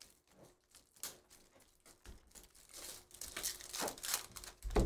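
Trading cards handled briefly, then a foil card-pack wrapper crinkling and tearing as it is ripped open, getting louder in the second half and ending with a soft thump.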